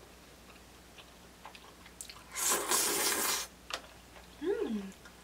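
Slurping udon noodles in curry sauce: one loud wet slurp about two and a half seconds in, lasting about a second, with a few faint mouth clicks around it. Near the end comes a short closed-mouth hum, rising and then falling in pitch.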